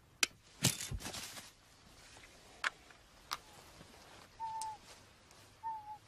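A sharp click, then a short rushing burst ending in a deep thump as the radio-controlled eagle trap is fired. Two more sharp clicks follow. Near the end, a bird gives short whistled calls, each falling slightly in pitch, about a second apart.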